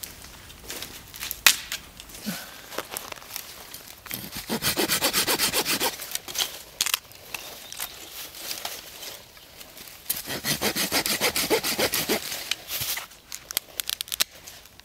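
Folding pruning saw cutting through thin dead sticks in two runs of rapid, even strokes, the first about four seconds in and the second about ten seconds in. Between the runs, sticks clatter as they are handled, with a sharp crack about a second and a half in.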